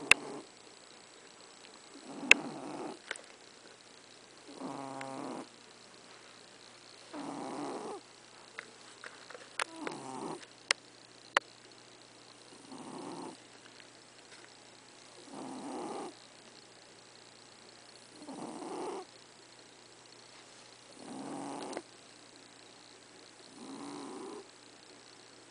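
Domestic cat snoring in its sleep: nine rough snores about a second long, one every two and a half to three seconds, some with a rattling flutter. A few sharp clicks come in the first half.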